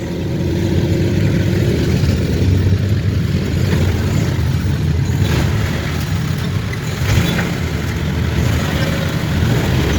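Motor vehicle travelling along a road: steady engine and road noise with a low rumble.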